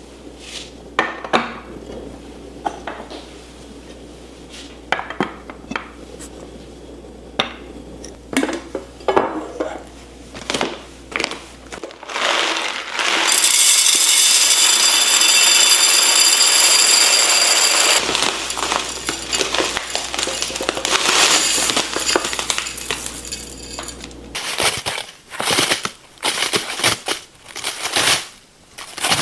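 Kitchenware and pantry containers being handled: scattered clinks and knocks, with a steady rushing sound for about five seconds in the middle.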